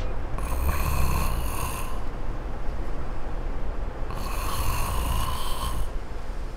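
A man snoring: two long snores, the first just after the start and the second about four seconds in, each lasting roughly a second and a half.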